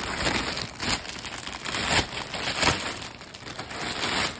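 Clear plastic packaging bag crinkling and rustling irregularly as hands pull and unwrap a plush toy from it, with sharper crinkles about one, two and nearly three seconds in.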